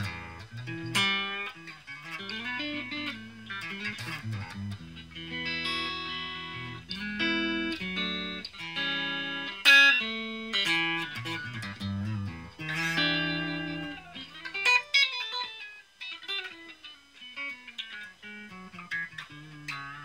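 Electric guitar played through a Raizin "Vintage Champe Box" effects pedal: picked single notes and chords, some held and left to ring, with a sliding run of falling notes about three quarters of the way through.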